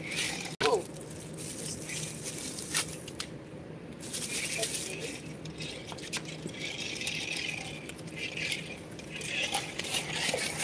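Small toy remote-control car running in spurts on concrete, an uneven rattling whir that comes and goes. A click and a short squeak about half a second in.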